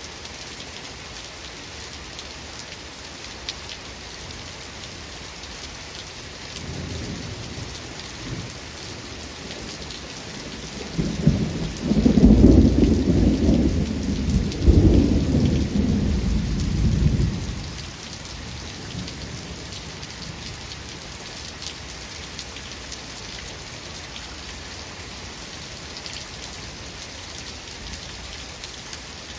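Steady rain falling, with a roll of thunder: a faint low rumble about six seconds in, then a loud rumble with two peaks that dies away after about six seconds.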